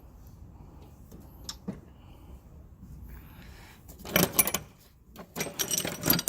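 Metal tools clinking and clattering as they are handled in a toolbox drawer: a few light clicks first, then two louder bursts of clanking in the second half.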